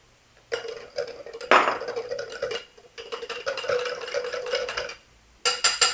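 Wire whisk stirring milk and custard powder in a small glass bowl, the wires clicking and scraping quickly against the glass. A few sharp clinks come near the end.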